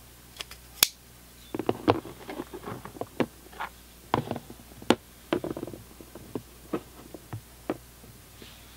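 A folding rescue tool handled and set down in a clear plastic organizer box: irregular clicks, taps and knocks against the plastic, the sharpest about a second in and another near five seconds in.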